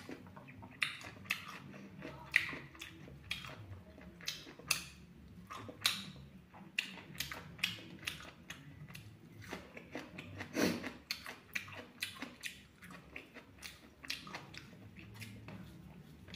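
Close-miked chewing and biting of fried pork: irregular wet smacks and crunches, several a second, one louder bite a little past the middle.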